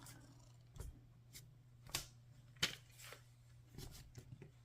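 Scattered faint clicks and light rubbing of small plastic parts and wires being handled, with the sharpest clicks about two and two and a half seconds in, over a faint steady low hum.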